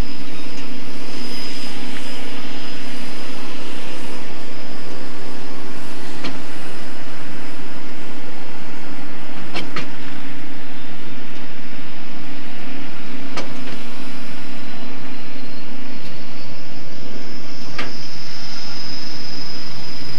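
Engines running steadily, with a low hum and a high, steady whine, and four sharp clicks spread through the sound.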